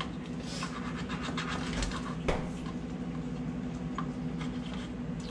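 A knife cutting raw chicken wings apart on a plastic cutting board, scraping and scratching, with a sharp click a little past two seconds in. A steady low hum runs underneath.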